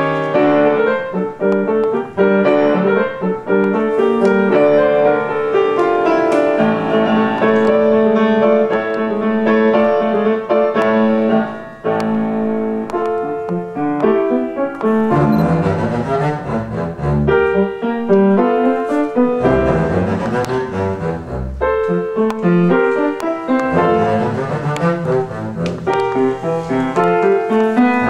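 Double bass and piano playing a classical piece together, with the bass's low notes stronger in the second half.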